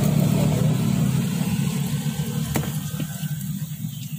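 A motorbike engine running close by, loud at first and fading away from about two seconds in. A single sharp click about two and a half seconds in.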